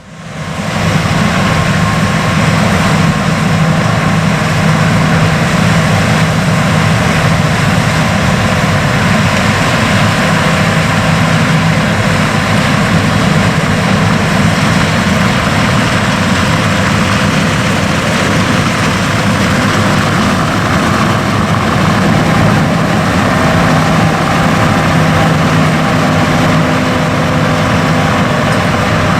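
Diesel harvest machinery running steadily under load: a continuous engine drone with a steady low hum and a higher whine, coming in after a brief dip at the start.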